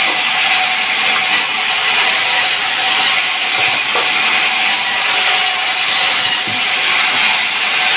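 Sawmill saw cutting through sengon wood, a loud, steady rushing noise without a break.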